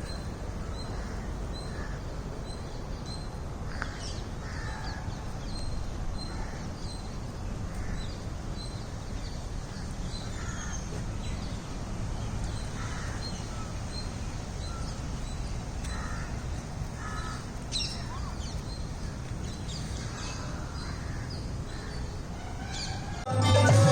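Birds calling in the open. One bird repeats a short high chirp about twice a second, while lower calls come now and then, all over a steady low rumble.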